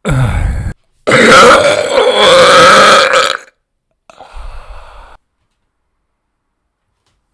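A person burping: a short burp, then one long, loud, drawn-out burp lasting about two and a half seconds, then a quieter short sound about four seconds in.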